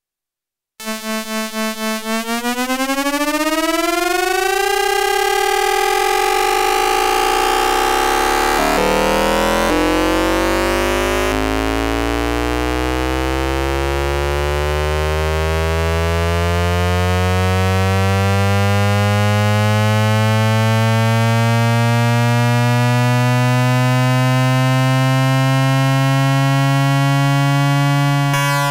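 Hanshin 5500 series train's VVVF inverter noise picked up by an AM radio, with an added tone at the inverter's output frequency, as the train accelerates. The whine starts about a second in, pulsing briefly, climbs in pitch and holds level, changes pattern about eight seconds in, then a stack of tones and a low tone rise slowly together until it cuts off abruptly near the end.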